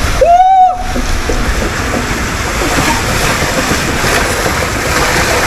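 Water rushing and splashing around a rider inside an enclosed water slide tube, a steady loud wash of noise. A man gives one short loud yell about half a second in.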